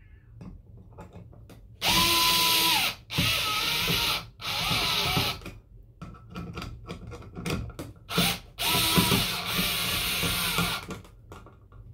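Small cordless electric screwdriver running in about five short bursts, driving screws to snug a mounting bracket up against the back of a wall plate. The motor whine rises at each start and falls at each stop, with small clicks and handling noise between bursts.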